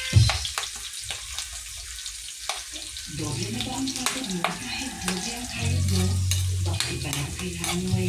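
Sliced onions and garlic sizzling in hot oil in a metal wok, with crackles and the clack and scrape of a metal spatula as they are stirred. A low hum comes in about three seconds in.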